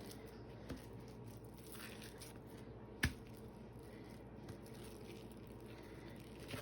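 Quiet handling of plastic wrap and raw chicken breast as it is rolled up, with faint squishing and crinkling, a small tap under a second in and one sharp knock about three seconds in.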